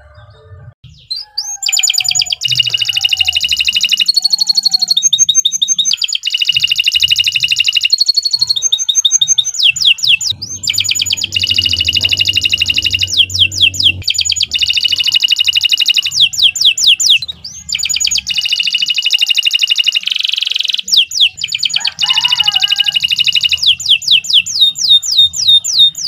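Domestic canary singing a long, near-continuous song of fast trills, rolls and rapidly repeated notes, starting about a second and a half in.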